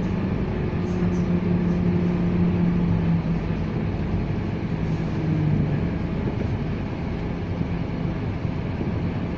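Scania K230UB city bus's five-cylinder diesel engine running under way, a steady low hum and drone whose pitch drops a little around five seconds in.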